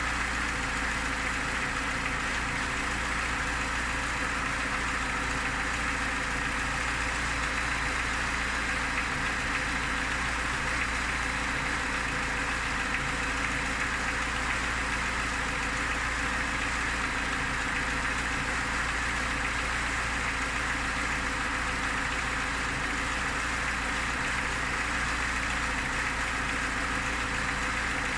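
Lada Niva engine idling steadily with a knock that the owner cannot identify.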